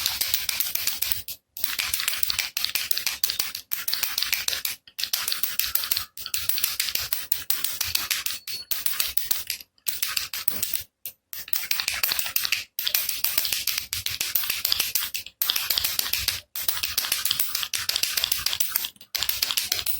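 Baby rattle (jhunjhuna) shaken rapidly, its beads clattering in a dense, hissy rattle. The rattling comes in spells of one to three seconds, broken by brief silent breaks about a dozen times.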